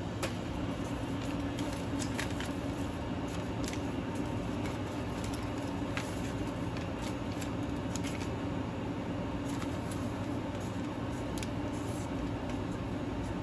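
Steady low machine hum, with scattered light clicks and rustles of paper invoices being handled and marked with a felt-tip marker.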